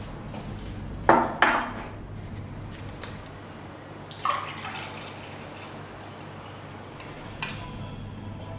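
Two loud clinks of tableware set down about a second in, then a dark drink poured into a glass tumbler from about four seconds in, and a spoon clinking on a glass serving bowl near the end, over a steady low hum.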